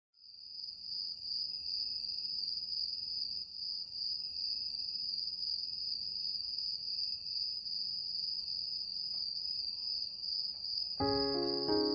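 A steady, high-pitched trill like an insect chorus, with a fainter lower tone beneath it. About eleven seconds in, keyboard music begins.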